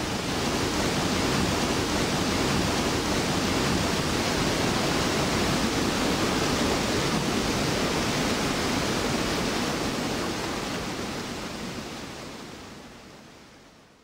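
Steady rushing of a torrent of whitewater, the flush of water released from a timber driving dam, pouring down a rocky creek. It fades out over the last few seconds.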